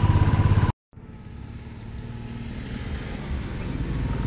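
Motorcycle engine running, cut off abruptly under a second in. After a brief silence, a motorcycle engine comes in quietly and grows steadily louder.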